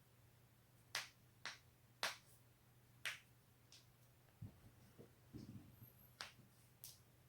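Neck joints cracking: four sharp pops in the first few seconds, then two more near the end, with soft low thumps of movement in between.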